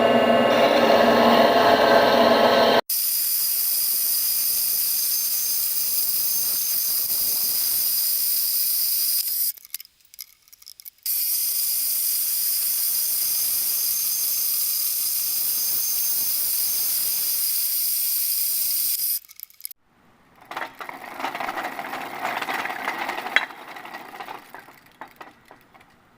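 Bandsaw running and cutting metal, with the workpiece held in a lathe chuck welded to steel channel, in several steady stretches that start and stop abruptly. Near the end, a rougher, uneven sound with one sharp click.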